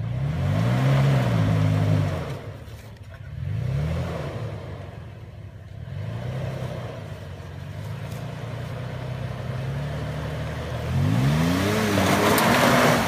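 Toyota FJ Cruiser's 4.0-litre V6 revving in repeated bursts under load while the truck climbs through a mud hole. Near the end the revs climb highest, joined by a loud rush of noise from the tyres spinning in the mud.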